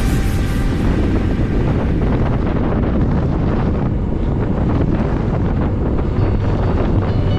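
Strong wind buffeting the microphone of a camera riding along on a bicycle: a loud, steady, low rumbling wind noise.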